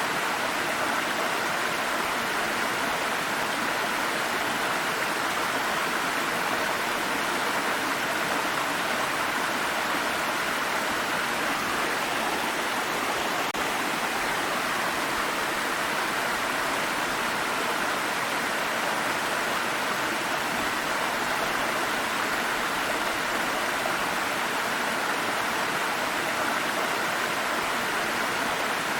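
Water stream flowing over rocks, a steady, even rush of water without breaks.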